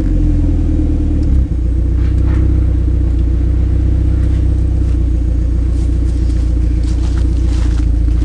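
Nissan 200SX engine idling steadily through its exhaust, a deep, even rumble, with a brief dip in level about a second and a half in.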